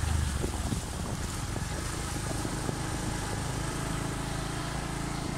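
Motorcycle engine running steadily while riding along, with a rush of wind and road noise over the phone's microphone and a brief louder low gust right at the start.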